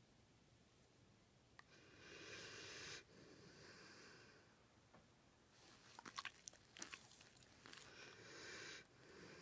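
A pit bull snoring, faint. It draws two long, wheezy breaths several seconds apart, each ending abruptly and followed by a softer breath out. Between them comes a short run of soft clicks.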